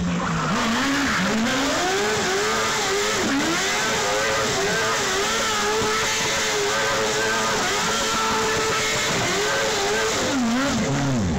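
Shortcar's motorcycle engine revving hard and held near the top of its range, with its pitch wavering and dropping sharply a few times, over the hiss of rear tyres spinning on asphalt in a smoky burnout.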